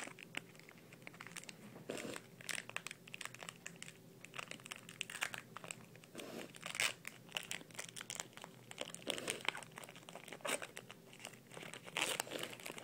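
Foil wrapper of a Magic: The Gathering booster pack crinkling and tearing as it is worked open, in irregular crackles.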